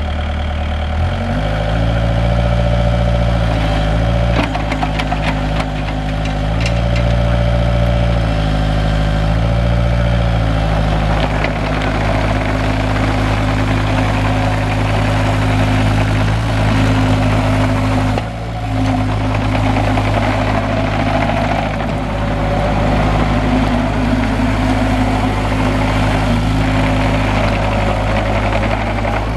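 Kubota 2.4-litre four-cylinder diesel engine of a 2008 Bobcat 430G compact excavator running. Its note shifts up and down several times in the first ten seconds, then holds steadier, with a brief dip about two-thirds of the way through.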